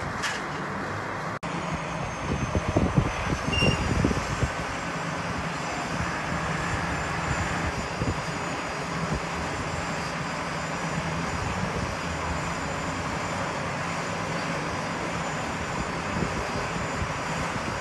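Steady engine-like hum over outdoor noise, with a brief dropout about a second and a half in and a few low thumps soon after.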